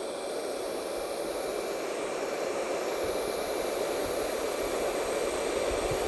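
20V cordless vacuum cleaner running on its high speed setting: a steady rushing whoosh of air with a faint high whine, slowly growing louder.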